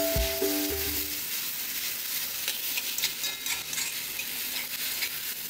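Fried noodles sizzling in a wok while a metal spatula stirs and tosses them, with scattered clicks and scrapes of the spatula on the wok. Background music fades out about a second in.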